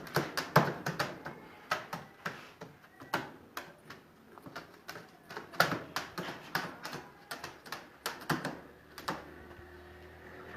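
Irregular sharp taps and clicks, a few a second, thinning out and stopping about nine seconds in.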